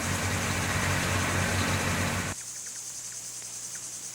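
A heavy engine running with a low rumble cuts off abruptly a little over two seconds in. Insects chirping in short repeated pulses follow.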